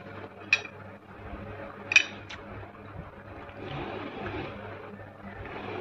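A spoon clinking against a glass serving plate as sweetened flattened rice is scooped from it: two sharp clinks with a short ring, about half a second and two seconds in, and softer scraping later, over a steady low hum.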